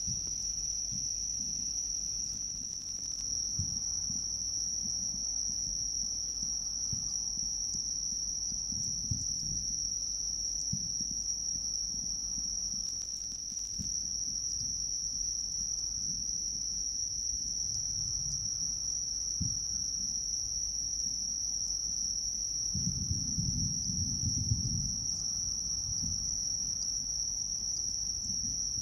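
Night insects singing in one steady, unbroken high-pitched chorus. Faint low thuds come now and then, with a longer low rumble about three-quarters of the way through.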